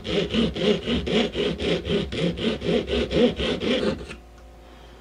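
Doubled hacksaw blade (two broken blade pieces glued together) sawing back and forth in a slot in a coconut's husk and shell, widening the cut. Quick, even rasping strokes, about five a second, stopping about four seconds in.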